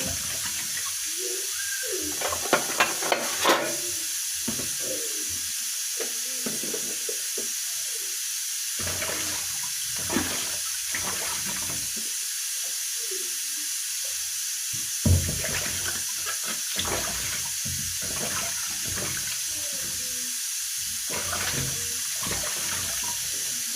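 Water splashing and sloshing as fruit and vegetables are washed by hand in a basin, with a few sharp clicks about two and a half to three and a half seconds in and a knock near the middle, over a steady hiss.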